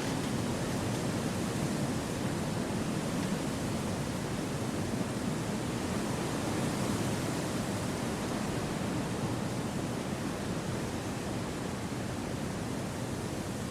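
Steady wind through forest trees: an even, deep rushing noise without distinct gusts or breaks.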